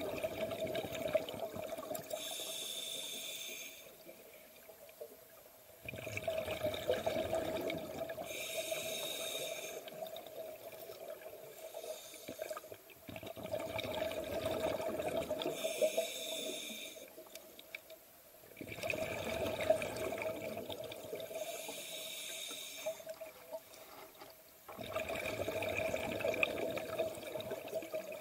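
Scuba diver breathing underwater through a regulator: bubbling exhalations and hissing breaths that repeat in a steady cycle, about one breath every six seconds, five in all.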